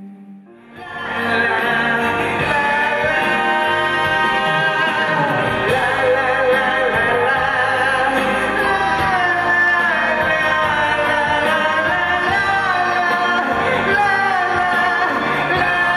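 A male singer sings a ballad over full instrumental accompaniment. After a quiet opening, the music swells to full volume about a second in.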